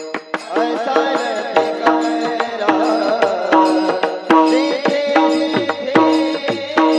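Marathi devotional kirtan music: a voice sings a long, wavering melodic line without clear words over regular hand-drum strokes and a recurring steady instrumental tone.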